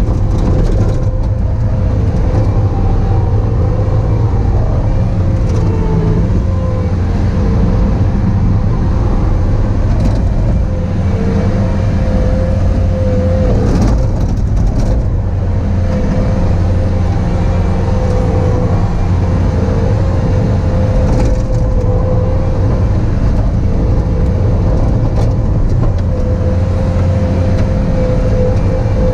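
Bobcat T595 tracked skid steer's diesel engine running steadily under working load, with a constant whine held over the engine sound, rising and dipping a little as the machine works.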